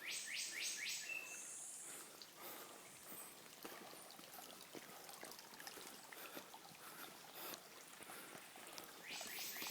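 Water trickling and dripping from a rain-forest tree's roots: a faint steady splash with many small drips. A short high bird call sounds at the start and again near the end.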